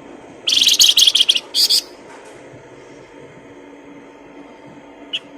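A songbird gives a loud, rapid, high-pitched chattering phrase lasting about a second, then a short second burst, and a single brief note near the end, over a faint steady hum.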